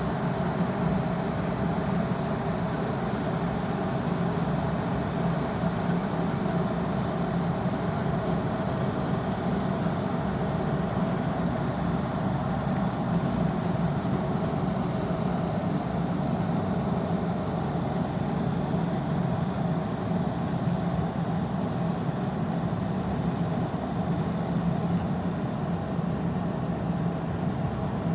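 De'Longhi KBLA3001 Active Line 2000 W electric kettle heating a full 1.7 L of water toward the boil, giving a steady low rumble and hiss.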